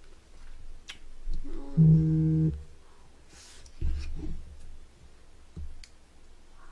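A woman eating with her mouth full hums one short steady 'mmm' about two seconds in, with low chewing thuds and a few faint clicks around it.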